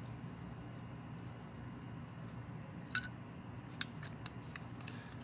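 A few faint clicks and light taps of a steel parking brake lever arm being handled and fitted against a brake shoe, the clearest about three and four seconds in, over a steady low hum.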